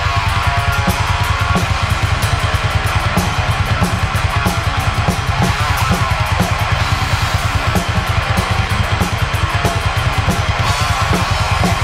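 Heavy metal band playing: guitars over a full drum kit, with the bass drum hit in a fast, even run of strokes and cymbals washing over the top.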